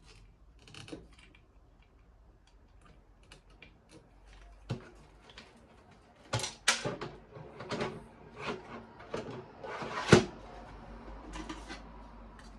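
Clicks, knocks and rustling of computer hardware being handled during assembly. It is sparse at first, then busier for the second half, with one sharp knock near the end.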